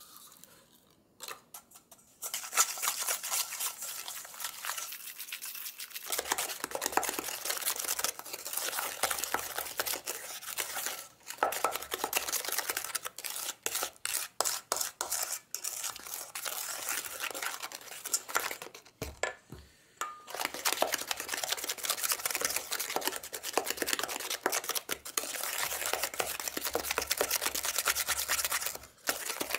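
Egg yolks and sugar being beaten by hand with a whisk in a stainless steel bowl: fast, continuous scraping and clicking of the whisk against the metal, broken by a few short pauses.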